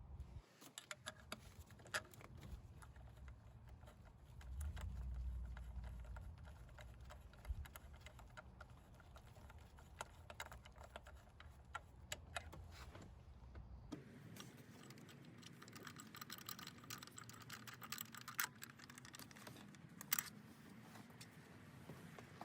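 Scattered light clicks and taps of small metal parts being handled as the thermostat housing bolts are threaded and snugged by hand, with a low rumble about five seconds in.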